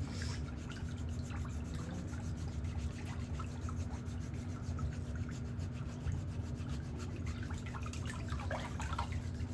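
Dense, continuous scraping and rubbing of a nail-care tool working along the sidewall of a toenail, over a steady low hum.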